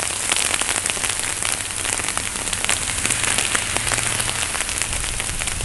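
Sleet striking surfaces close by: a dense stream of small ticks over a steady hiss, with a low rumble of wind.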